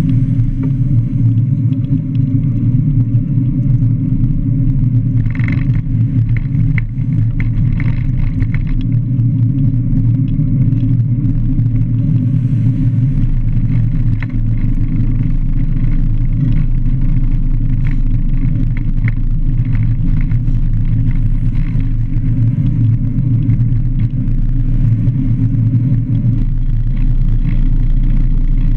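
Steady low rumble of wind buffeting and road noise on a handcycle-mounted camera, with a fuel tanker truck passing close alongside. Light clicks and rattles come through, mostly around five to nine seconds in.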